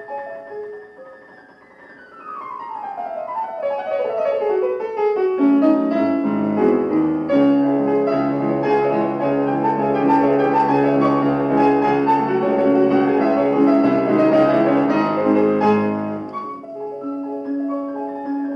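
Solo Blüthner grand piano playing classical music. A quiet run falls down the keyboard over a few seconds, then loud, full chords with deep bass notes come in and continue until near the end, where the playing thins to lighter treble figures.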